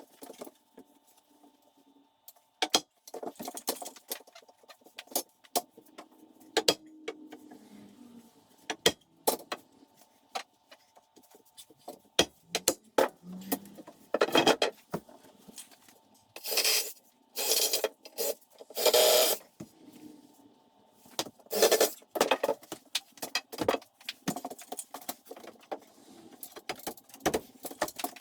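Work noise of building materials and tools being handled: scattered clicks and knocks, with a run of short, louder scraping strokes in the middle, over a faint steady hum.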